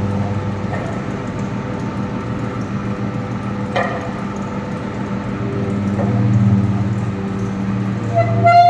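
Poultry feed mill machinery running with a steady electric hum, with a sharp knock about four seconds in. Near the end a steady horn-like tone with overtones starts.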